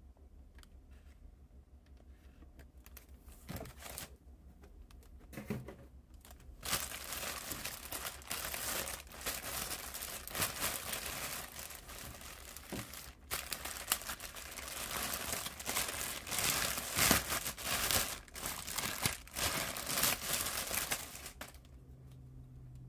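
Packaging of a new carburetor being opened: wrapping crinkling and tearing in a dense stretch of rustling that starts about six seconds in and stops shortly before the end, after a quiet start with a few light clicks.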